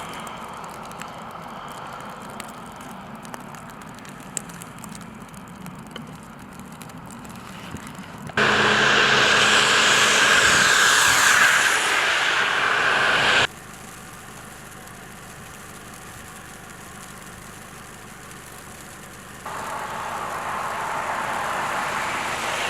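Outdoor road-traffic noise, in sections that change abruptly. About eight seconds in it jumps to a much louder stretch of passing-traffic noise that cuts off suddenly some five seconds later. It drops back to a low steady hum, then builds again near the end.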